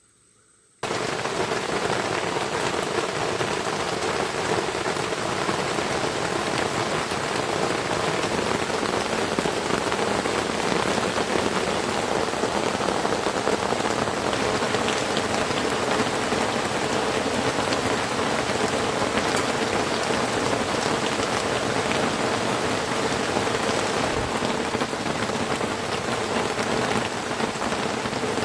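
Heavy rain pouring steadily, a dense, even patter of drops that starts abruptly about a second in.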